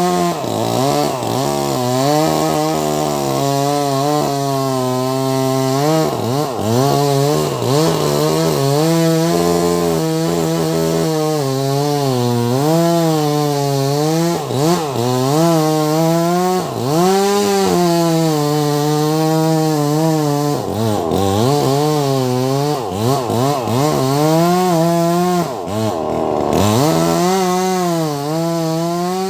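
Two-stroke Wagner 580 chainsaw with a 24-inch bar cutting into a log about 80 cm thick, running at high revs throughout. Its engine pitch repeatedly sags under the load of the cut and swings back up.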